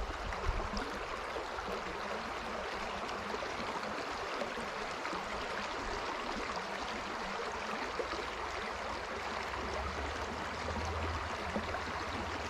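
River water running steadily, an even rushing noise of flowing current.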